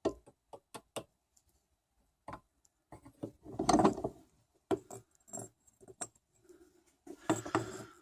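Irregular light clicks, knocks and rattles of small hard objects being handled, with a busier clatter about halfway through and another near the end.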